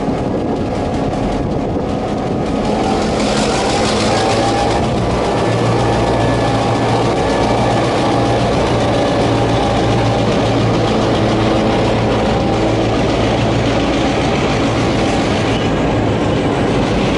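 Clyde-built T-class diesel locomotive's two-stroke diesel engine running close by: a steady low drone, with a brief hiss about three seconds in.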